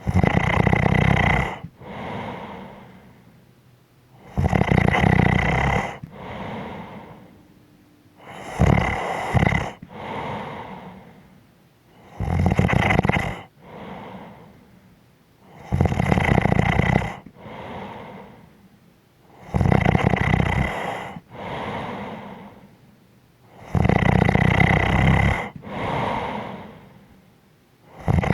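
A person snoring in sleep with a steady rhythm: a loud snore about every four seconds, each followed by a softer breath.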